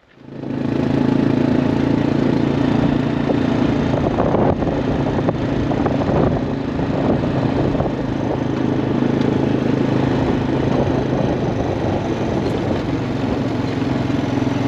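Honda Foreman quad bike's single-cylinder four-stroke engine running as the quad is ridden along. It comes up within the first second, then holds a steady note.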